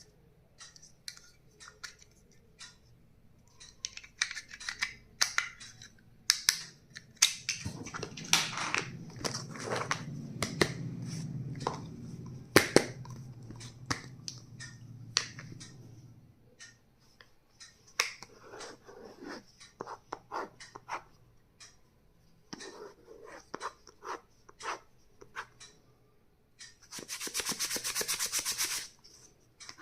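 Stationery items being handled and unpacked: scattered clicks, taps and rubbing, with a low hum through the middle and a rasping run of about two seconds near the end.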